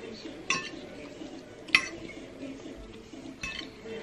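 Metal fork and knife clinking against a ceramic plate while eating, three sharp clinks with the second the loudest.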